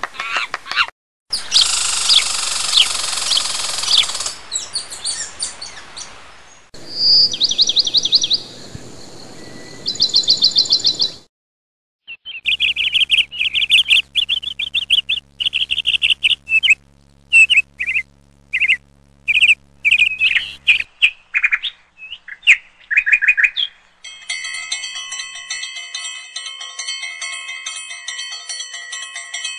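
Birds chirping and trilling in a run of short, separate stretches that start and stop abruptly, with brief silences between them. Near the end the birds give way to a steady, sustained ringing of bell tones.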